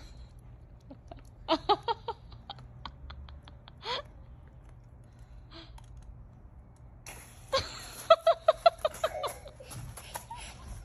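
Laughter: quick, short pitched bursts of giggling, a brief run about one and a half seconds in and a longer run about seven and a half seconds in.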